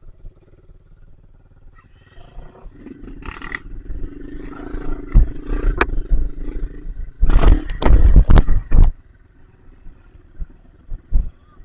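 Dirt bike engine revving hard in mud, its pitch climbing and dropping, with a few very loud heavy blasts of throttle about seven to nine seconds in.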